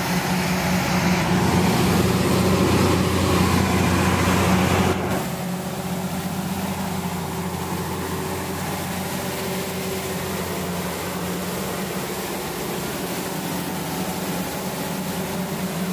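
Large diesel generator set running steadily, a constant low engine drone. It is louder for the first five seconds, then drops a little and stays even.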